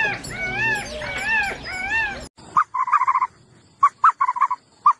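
Animal calls: about four repeated calls, each rising and falling in pitch. They cut off abruptly a little over two seconds in, giving way to short bursts of rapid, choppy calls from a different animal.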